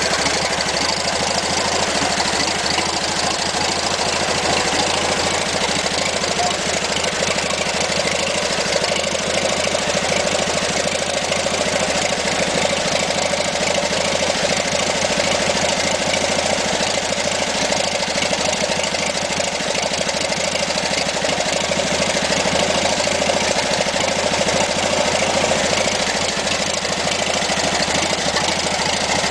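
An engine running steadily at idle, with no change in speed or load.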